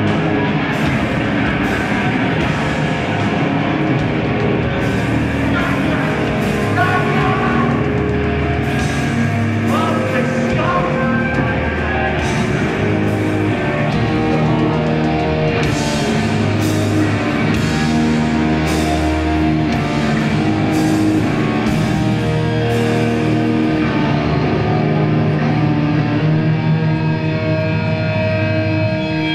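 Hardcore punk band playing live: loud electric guitars, bass and drums with repeated cymbal crashes, heard from within the crowd.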